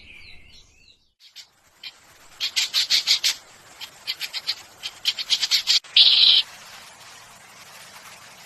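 A small bird calling: a falling whistled note, then quick runs of short high chirps in three bursts, and a louder harsh note about six seconds in.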